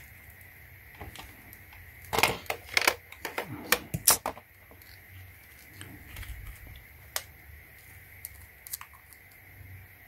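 Gloved hands handling multimeter test leads and clips on a 12 V AGM car battery: a cluster of sharp clicks and rattles about two to four seconds in, then a few faint ticks.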